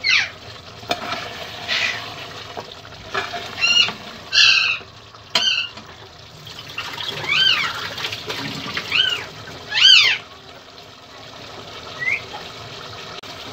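Mutton and masala frying and bubbling in an open aluminium pressure cooker, stirred and scraped with a steel ladle. Over it come several short, high calls that rise and fall, the loudest about the middle.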